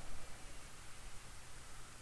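Quiet room tone: a faint steady hiss with a low, steady hum underneath, and no distinct event.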